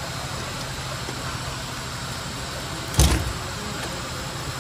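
A single sharp metallic knock about three seconds in, over a steady background hum, as the starter motor is worked loose from the engine and knocks against the metal around it.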